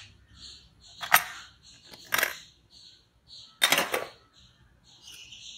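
Stainless-steel Prestige pressure cooker lid being unlocked, turned and lifted off, with three sharp metallic clicks and clunks about one, two and three and a half seconds in, the last the loudest. The pressure has already been let out, so the lid opens without a hiss.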